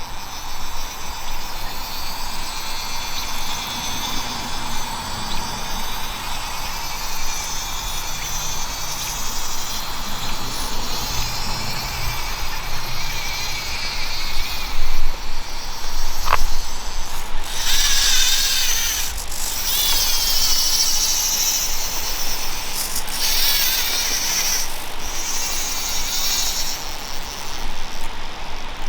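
Small electric motor and gearing of a 1/24 scale RC rock crawler whining as it drives, with two louder, higher-pitched stretches in the second half as it is throttled up.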